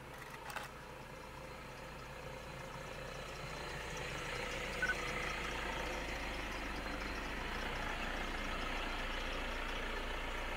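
Vehicle engine idling steadily, with a broad hiss that grows louder from about four seconds in. A brief high tone sounds about halfway through.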